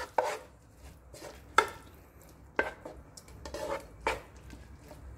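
A spatula stirring corned beef and mixed vegetables in a speckled non-stick wok, scraping and knocking against the pan in separate strokes about once a second.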